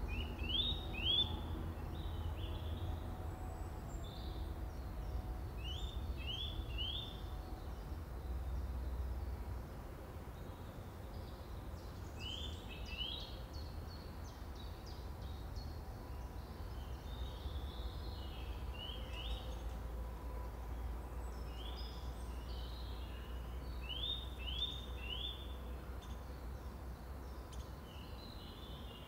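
A songbird singing short phrases of two or three quick rising notes, repeated about every six seconds, over a low steady rumble.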